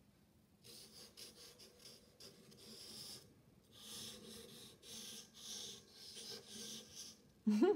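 Felt-tip marker drawing lines on paper, a series of soft, hissy strokes. Near the end comes a short, louder vocal sound that rises in pitch.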